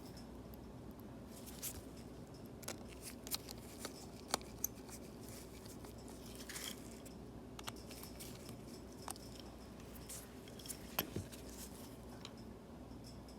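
Scattered light clicks and taps of small tools and parts being handled during iPad screen repair work, over a low steady hum.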